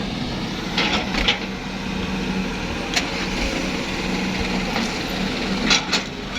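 Heavy diesel engine of construction machinery running steadily, with several short sharp knocks: a few about a second in, one around the middle, and a cluster near the end.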